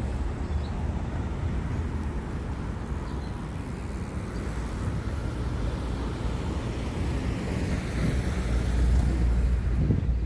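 City street ambience: traffic running on a nearby road, with a low rumble that grows louder near the end.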